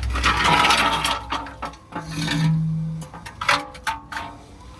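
Scraping and clattering as a plate is handled and fitted back into place under the car, ending in several sharp knocks.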